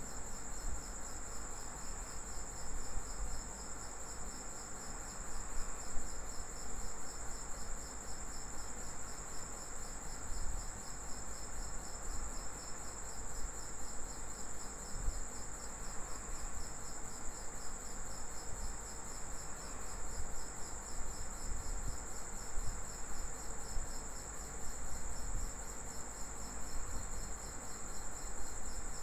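Steady, high-pitched insect trilling, a continuous fast-pulsing drone.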